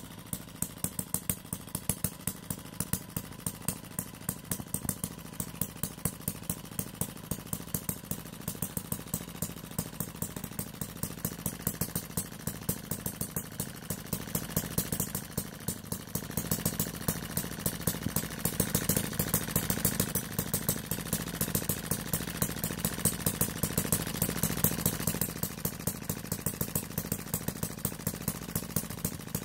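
Upshur miniature single-cylinder vertical four-stroke petrol engine running on its own, firing in a regular beat of sharp pops. It gets louder for a stretch in the second half.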